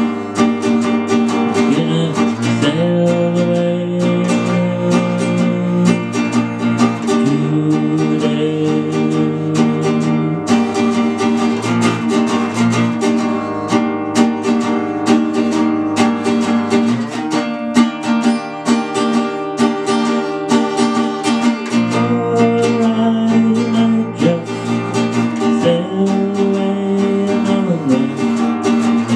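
Acoustic guitar played solo, strummed and picked in a steady rhythm, with long held notes over it.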